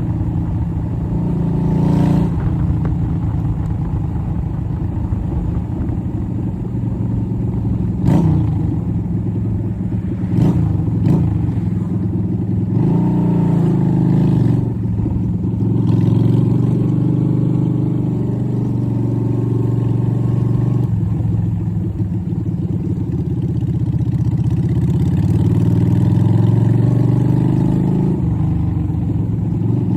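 Yamaha Virago XV250's air-cooled V-twin running through a straight-through exhaust while being ridden, its pitch rising and falling with throttle and gear changes. A few sharp knocks land in the first dozen seconds.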